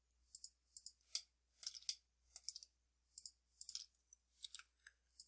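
Faint, quick computer mouse clicks at irregular spacing, a few a second, some in rapid pairs.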